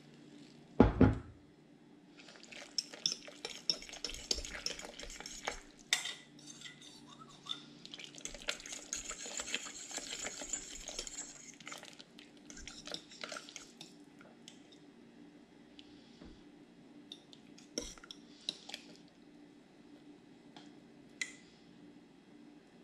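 Spoon stirring in a slow cooker's crock, scraping and clinking against its sides as thickening powder is mixed into the cooking liquid for gravy. The scraping is busiest in the first half and thins to occasional clinks later. A single heavy thump comes about a second in.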